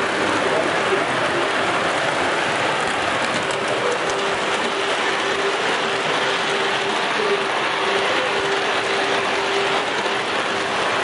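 7mm-gauge model steam locomotive No. 35021 running along the track: a steady, dense mechanical clatter of wheels and gearing, with a faint whine that comes and goes.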